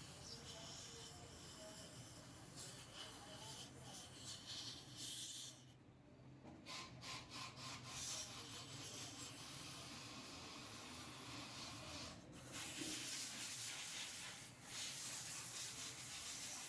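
A throttle body being cleaned with carbon cleaner: a steady hissing, rubbing noise, broken by a few short pauses. It is being cleared of heavy carbon build-up as part of chasing an engine misfire.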